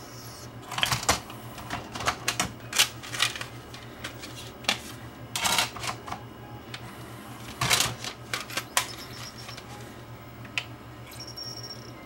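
Scattered clicks and clatters of a CD being lifted out of an opened-up Pioneer PD4300 CD player's disc clamp and another disc set in its place, over a steady low hum.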